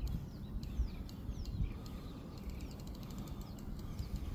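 Birds chirping, short calls that fall in pitch, over a steady low rumble with a few louder bumps. A run of fast faint ticks comes around the middle.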